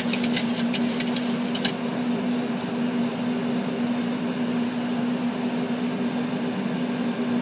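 Boeing 737-800 flight deck noise: a steady hum of air-conditioning and equipment fans with a constant low tone. A quick run of light clicks sounds in the first second and a half.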